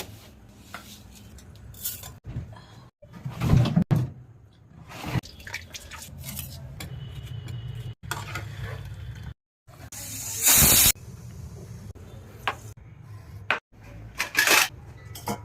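Kitchen sounds of dal and rice being cooked, in short edited clips: pots and utensils clattering and water pouring, with a loud rush of noise for about a second around ten seconds in.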